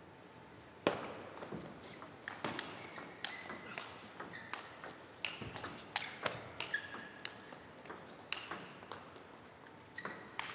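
A table tennis rally: the ball clicks sharply off the rackets and bounces on the table, starting about a second in with the serve and going back and forth at a quick, uneven pace.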